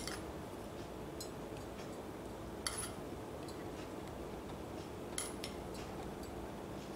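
A metal spoon clinking lightly against a ceramic serving dish a few times while chopped coriander is sprinkled over rice, over a steady faint background hiss.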